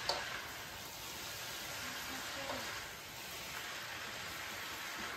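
Chicken, vegetable and egg-noodle stir-fry sizzling steadily in a hot pan, with one sharp utensil click right at the start.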